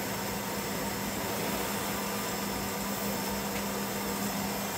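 Electric stand mixer running steadily on medium speed, its motor giving a constant hum as the beater combines dry cake ingredients in a steel bowl.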